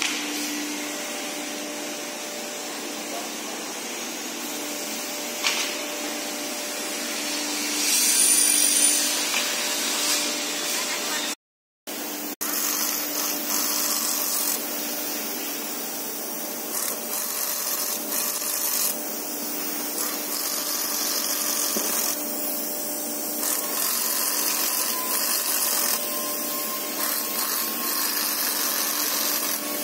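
Workshop noise: a steady machine hum under a constant hiss, with small tool and handling sounds from shutter assembly. A louder hiss comes about eight seconds in, and the sound drops out for a moment near the middle.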